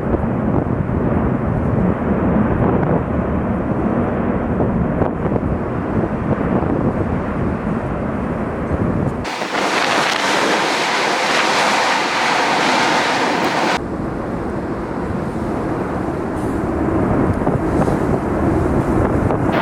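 Continuous deep roar of the La Palma volcano's vents fountaining lava. For a few seconds in the middle the low rumble drops out and a brighter hiss takes its place.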